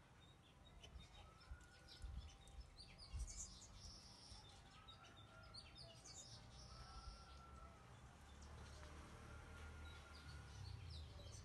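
Faint outdoor ambience: birds chirping and twittering, with a few drawn-out whistled notes, over a low background rumble.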